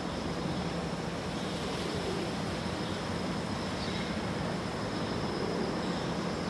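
Steady outdoor background rumble and hiss with no distinct events, over a faint, steady high whine.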